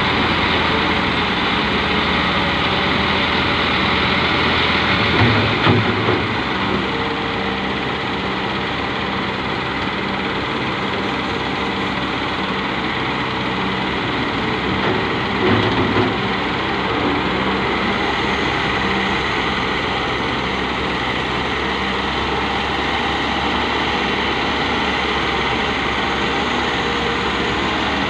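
Diesel engines of a Hitachi wheeled excavator and a tractor running steadily as the excavator loads soil into the tractor's trolley, with two brief louder moments about five and fifteen seconds in.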